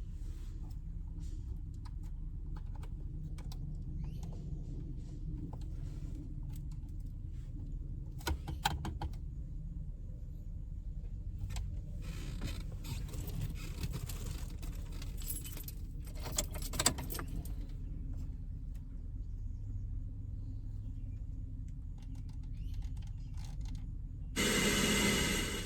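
Keys jangling and rattling, with scattered clicks, over a steady low rumble in a pickup truck's cab. Near the end, sound starts coming through the truck's speakers from a newly wired aftermarket head unit, leading into music.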